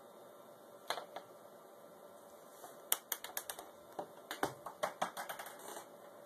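Sharp clicks and light taps of small hard objects: two about a second in, then a quick, irregular run of many clicks over the last three seconds.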